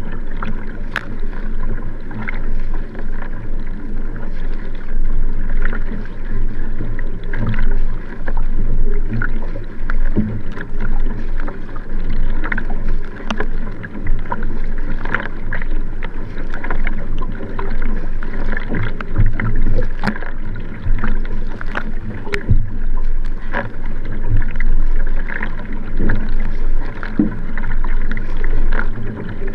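Sprint racing kayak (Nelo Vanquish) paddled hard: the paddle blades splash into the water stroke after stroke in a steady rhythm, over continuous rushing water.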